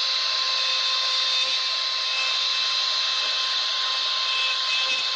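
CNC router spindle running steadily while a tapered engraving bit carves a relief into a wooden panel: a constant whine over the hiss of the bit cutting wood.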